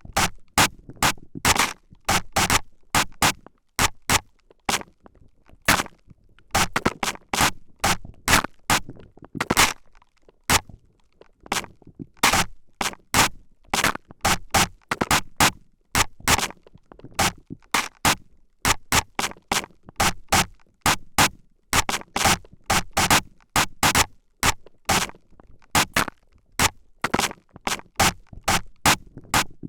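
A spray bottle spritzing into the ears and face of an ASMR microphone: quick short sprays in irregular runs, two or three a second, with brief pauses between runs.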